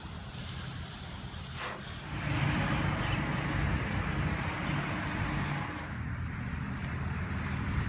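Hiss of water spraying from a garden hose for about two seconds. It gives way to a steadier rushing noise over a low rumble.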